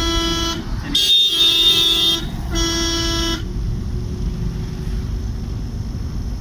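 Vehicle horn honking in three blasts; the middle one is the longest and harshest. After the blasts, the engine and road noise of the moving vehicle continue.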